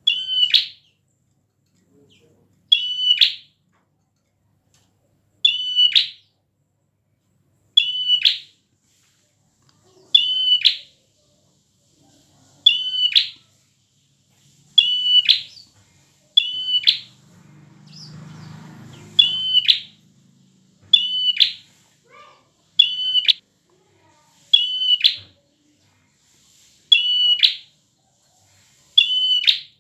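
Prenjak (prinia) giving loud, short, sharp calls, repeated about every two seconds, around fourteen times. A faint low rumble is heard for a couple of seconds near the middle.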